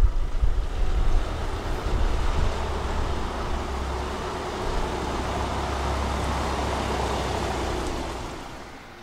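A 2016 Skoda Superb's 2.0 TDI four-cylinder diesel engine runs with a low steady hum as the car drives slowly over wet cobblestones, with tyre hiss from the wet stones. The sound fades away near the end.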